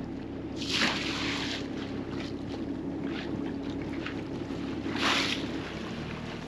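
Fishing boat's engine running steadily, with sea water rushing and splashing along the hull; two louder splashes come about a second in and about five seconds in.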